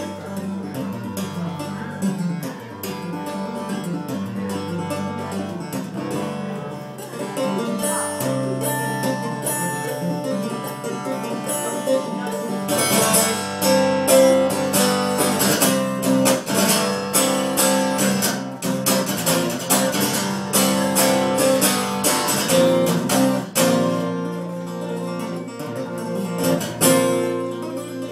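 Acoustic guitar played without singing. The playing grows louder and denser with strumming from about halfway through.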